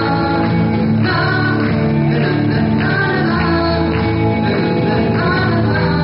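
Live band playing a song: a male singer sings into a microphone over a drum kit, electric lead guitar and strummed acoustic rhythm guitar.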